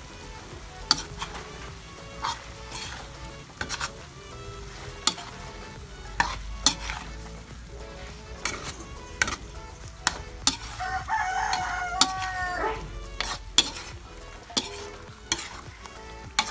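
A metal utensil stirs and scrapes chicken curry in a steel wok, with irregular clanks against the pan over a light sizzle of frying. A rooster crows once, about two-thirds of the way through.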